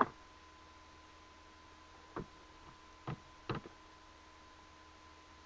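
A few short, sharp taps and clicks from handling makeup brushes and eyeshadow containers: one at the very start, then three more between about two and three and a half seconds in. Under them runs a faint steady hiss with a thin steady tone.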